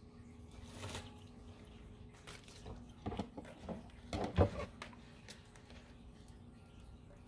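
Handling noises at a porcelain kitchen sink as a pair of kitchen shears is picked up: a few knocks and rustles, the loudest about four and a half seconds in, over a steady low hum.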